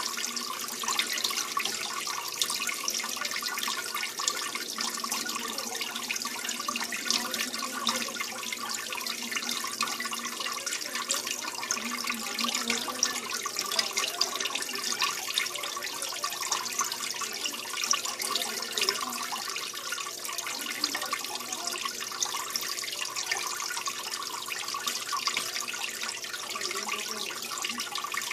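Aquarium filter running in a turtle tank, a steady trickle and splash of water falling into the tank.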